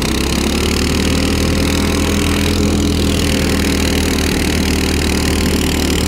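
Small single-cylinder petrol engine of a tracked motorized snow tow running under load, climbing in speed over the first second and then running steady.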